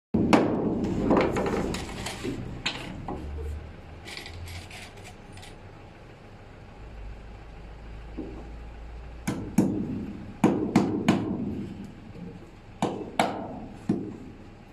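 Claw hammer driving nails through small wooden blocks into a wooden floor: a run of sharp hammer strikes, a pause of several seconds, then another run of strikes.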